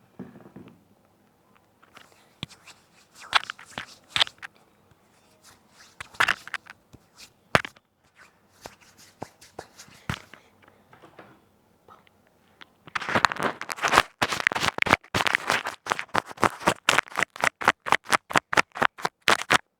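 Close-up crackling and clicking right at a headset microphone: scattered sharp clicks at first, then from about two-thirds of the way in a dense run of rapid crackles and taps, several a second.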